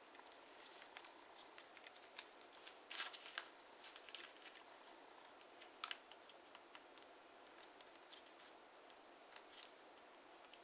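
Faint crackles and clicks of TANT origami paper being pinched and creased by fingers, with a cluster of sharper crackles about three seconds in and another near six seconds.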